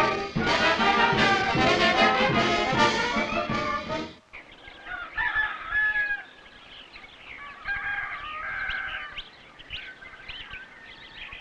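Oaxacan brass band playing: trumpets and trombones with crashing cymbals. It cuts off suddenly about four seconds in, leaving quiet outdoor ambience with birds chirping and calling.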